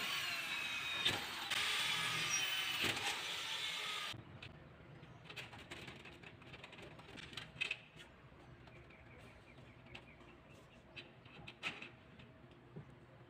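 Cordless drill running in two bursts for about the first four seconds, its motor whine sagging in pitch under load as it works on the aluminium door. After that come scattered light clicks and taps of metal door hardware being handled and fitted.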